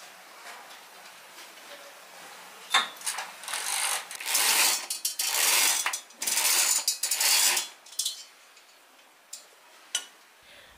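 A zebra roller blind being raised by pulling its cord loop by hand: the blind's roller mechanism rattles through about five pulls, each under a second long. The pulls follow a click about three seconds in.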